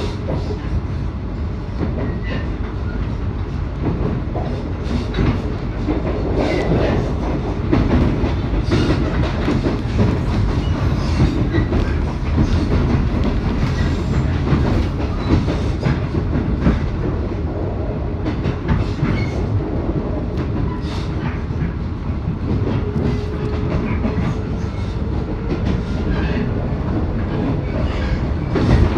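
JR East 719 series electric multiple unit running along the line, with a steady rumble and irregular clacking of the wheels over rail joints. About two-thirds of the way in, a faint tone starts that slowly rises in pitch.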